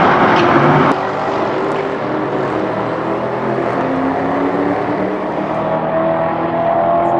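Chevrolet Corvette V8 and Nissan GT-R twin-turbo V6 accelerating hard side by side down a drag strip. The sound is loudest at the launch and drops suddenly about a second in, then the engine notes climb in pitch as the cars pull through the gears.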